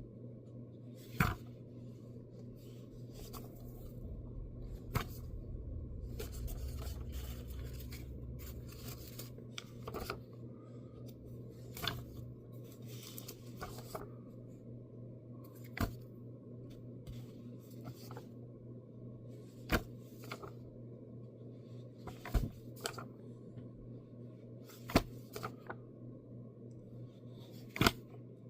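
Comic books being handled and paged through: paper rustling with sharp clicks every couple of seconds, busier for a few seconds early on, over a steady low hum.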